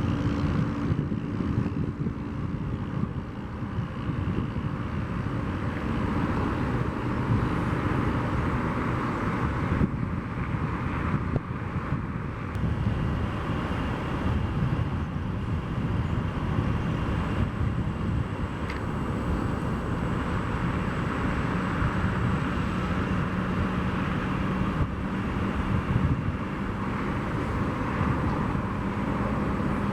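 Jet airliner engines running steadily: a continuous low rumble with faint high whine tones over it.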